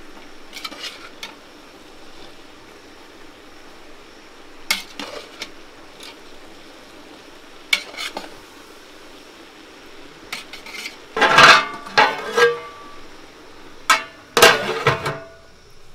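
A long metal spoon scraping and clinking in a large metal cooking pot as vegetables are stirred, in scattered knocks. Louder metal clattering comes twice in the last few seconds as a metal lid is handled against the pot.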